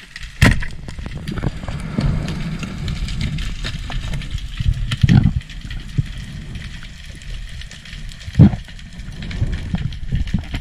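Underwater sound through an action camera's waterproof housing: a steady low muffled rumble from the diver's movement in the water, broken by three sharp knocks, about half a second in, about five seconds in and near the end.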